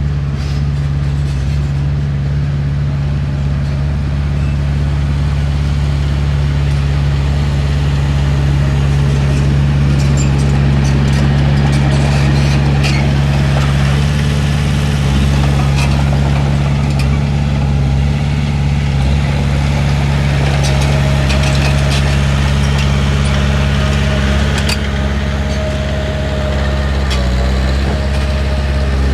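Heavy diesel engine of earthmoving machinery running steadily, with scattered sharp clicks and clanks over it, most of them in the middle of the stretch.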